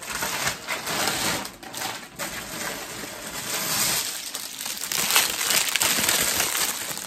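Clear plastic packaging rustling and crinkling in quick, irregular crackles as packaged hair bundles are dug out of a bag and handled.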